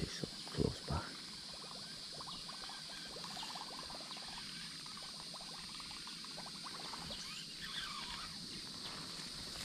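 Steady high-pitched drone of insects in summer vegetation, with two soft thumps in the first second from handling a baitcasting rod and reel.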